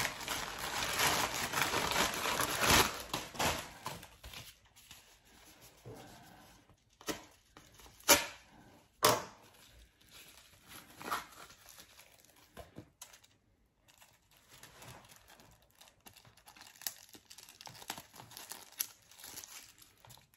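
A white mailer bag being torn open and crumpled by hand: loud crinkling and tearing for about the first four seconds. Then quieter rustling and scattered clicks as a small yellow envelope is opened, with two sharp snaps near the middle.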